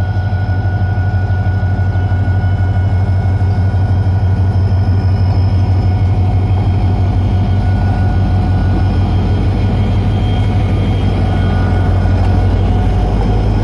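HGMU-30 diesel-electric locomotive's diesel engine running at close range: a loud, steady, low drone with a steady whine above it.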